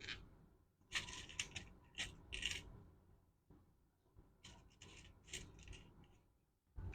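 Faint, irregular rubbing and scraping of hands handling motorcycle wiring, in short bursts.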